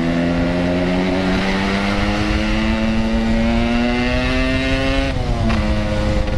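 Yamaha RX-King two-stroke motorcycle with a Packing Power exhaust accelerating through a gear. The engine note climbs steadily for about five seconds, then drops sharply at an upshift and holds steady.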